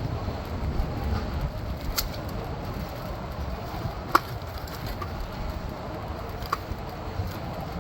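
Street traffic noise with a fluttering low rumble of wind on the microphone, heard from a moving electric scooter. Three sharp clicks or knocks come about two, four and six and a half seconds in.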